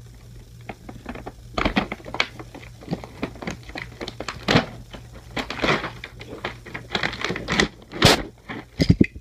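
Toy-car packaging being opened by hand: a quick irregular run of crinkling, tearing and clicking of plastic and cardboard, starting about a second and a half in.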